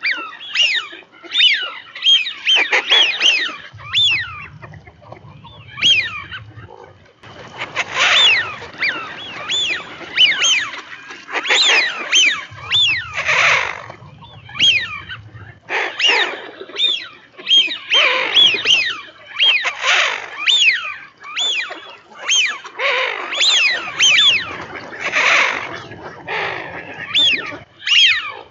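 A flock of Eurasian wigeon calling, many short whistles that rise and fall, overlapping and repeated over and over. A low rumble comes and goes underneath in a few stretches.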